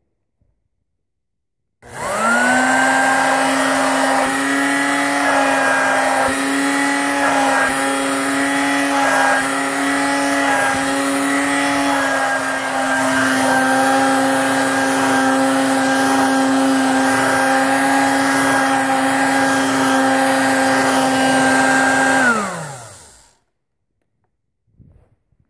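Dirt Devil 120 hand vacuum switched on, its motor spinning up quickly to a loud steady whine. It runs for about twenty seconds, the sound wavering for a while early on as it is worked over cushion and carpet, then is switched off and winds down with a falling pitch.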